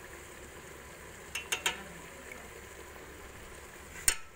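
A spoon knocking against a metal cooking pot while stirring: three quick clicks about a second and a half in, then one sharp, louder knock near the end, over the steady faint hiss of the curry cooking on the stove.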